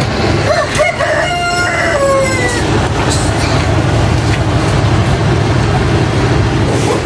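Small washing-machine spin dryer running with a steady low motor hum. A rooster crows once, from about half a second in until about two and a half seconds.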